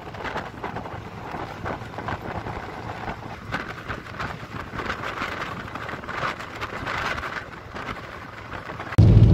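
Wind and road noise of a moving bus, a fluctuating rush. About nine seconds in it cuts abruptly to a much louder, steady low engine drone.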